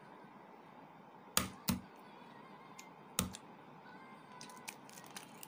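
Boiled duck egg being tapped to crack its shell: three sharp taps, two close together about a second and a half in and a third about three seconds in, followed by faint crackles of shell as it is peeled.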